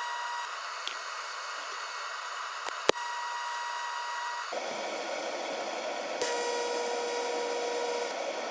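Welding torch hissing steadily while the rail pieces are fusion-welded, with a single sharp click near the middle. About halfway through, the hiss turns fuller and deeper.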